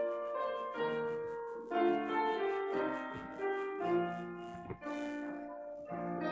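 Solo piano music: chords and a melody of held notes that sound and fade, played as the offering music.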